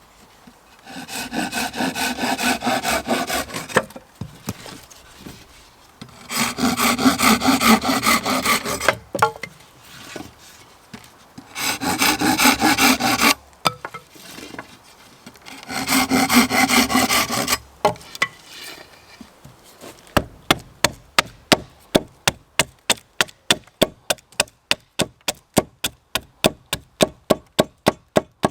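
Hand saw cutting wood in four bouts of quick back-and-forth strokes, each a couple of seconds long. From about twenty seconds in comes a fast, even run of sharp knocks, about four or five a second.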